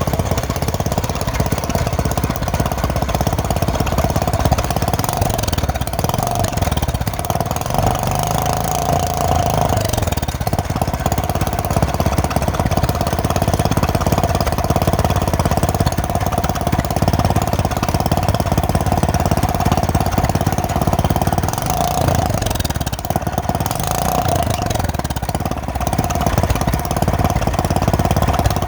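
A small motor running steadily with a rapid pulse.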